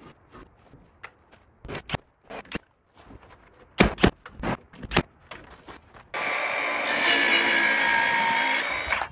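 A red Milwaukee cordless nailer firing nails into a wooden batten: a run of sharp shots, with lighter knocks between them. About six seconds in, a cordless power saw starts and cuts through the bottom of the batten, running steadily for about three seconds before stopping.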